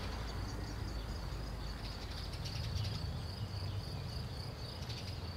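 Crickets chirping steadily, a continuous high trill, over a low steady hum.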